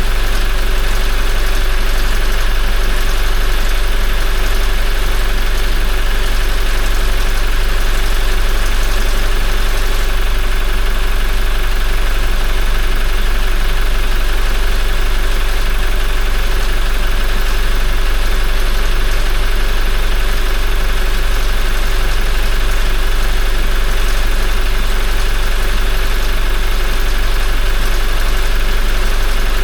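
Toyota 1GD-FTV 2.8-litre four-cylinder turbodiesel idling steadily, just after an oil change.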